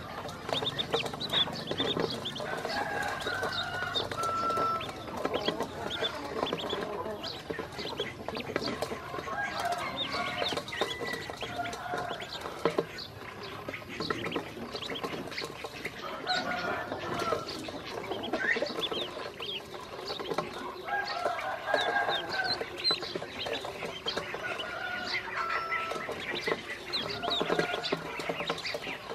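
A group of ducklings peeping continually while they dabble at seed feed in a stainless steel bowl of shallow water, with many small clicks and splashes from their bills and paddling.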